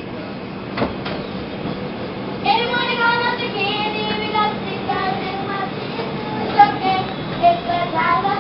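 High voices of young girls singing in a moving subway car, starting about two and a half seconds in, over the train's steady running noise.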